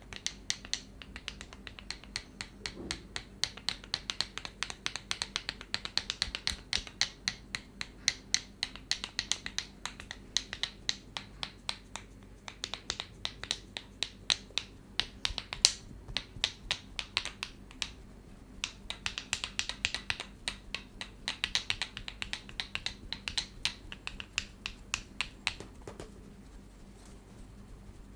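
Rapid, crisp clicking taps of hands on the head during a head massage, several a second in long runs, easing off briefly twice.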